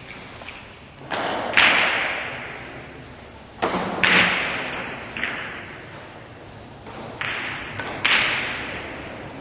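Billiard balls on a pocketless five-pin carom table: a cue strike and balls knocking into each other and the cushions. About eight sharp knocks come in three clusters, each with a short ringing tail.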